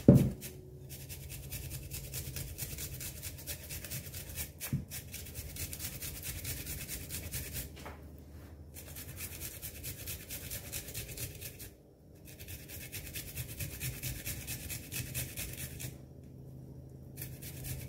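Garlic cloves grated on a small metal hand grater: rapid rasping strokes in runs, broken by a few short pauses.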